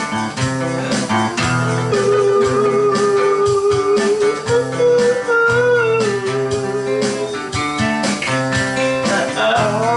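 Guitar music with a steady beat, a long melody note held through the middle that bends up in pitch briefly.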